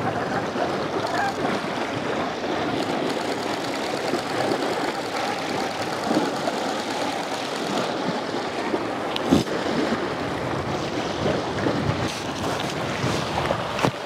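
Small waves washing on a sandy shore with wind noise on the microphone, steady throughout; a single sharp knock about nine seconds in.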